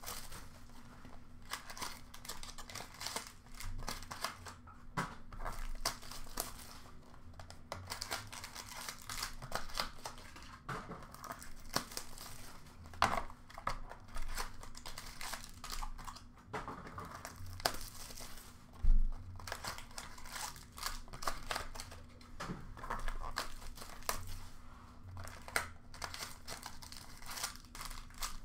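Foil trading-card pack wrappers being torn open and crinkled by hand, in a dense, irregular run of crackles and rips. About 19 seconds in comes a single louder thump.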